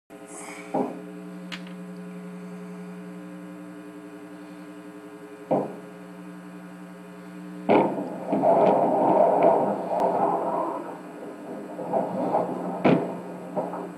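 A steady hum, with a click about a second in and another about five seconds in. About eight seconds in it gives way to a louder, rough, muffled noise that wavers for a few seconds, followed by a sharp click near the end.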